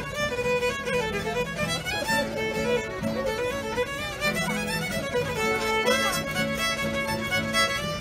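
A fiddle and an acoustic guitar playing a tune live, the bowed fiddle line moving over the guitar's chords.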